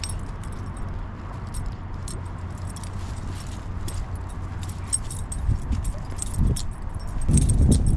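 Light metallic jingling and clicking, irregular and quick, over a steady low rumble, with a few louder low knocks near the end.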